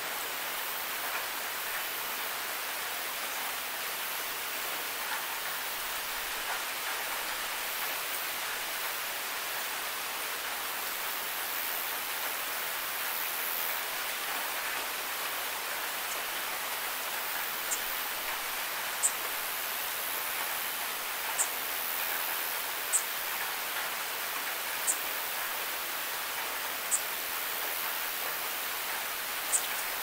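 Steady rain falling on a wet, hard surface, an even hiss of drops. In the second half, short high ticks stand out every second or two.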